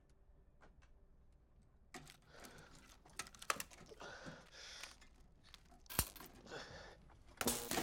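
Cloth rustling and small metallic clicks and clinks of hands working on fittings inside a steel tank hull, starting about two seconds in, with one sharp click about six seconds in and a louder clatter near the end.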